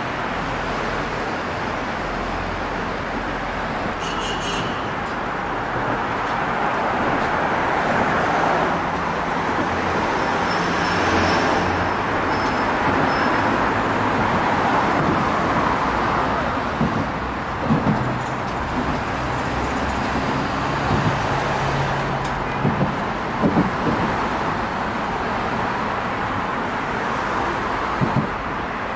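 Steady road traffic heard from under a bridge, cars passing overhead and nearby as a continuous swelling rush of tyre and engine noise. Several short low thuds between about 17 and 28 seconds in, typical of tyres going over expansion joints on the bridge deck.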